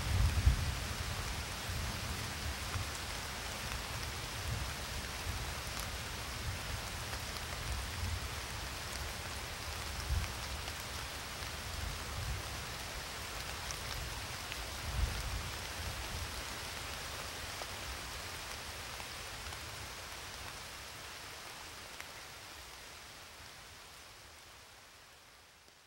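Steady rain hissing, with a few low rumbles of thunder, slowly fading out over the last several seconds.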